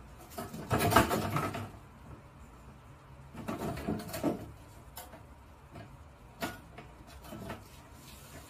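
Plastic toy wrestling ring knocking and rattling as a kitten climbs on it and bats at its ropes: a burst of clattering about a second in, another around four seconds, then single sharp knocks.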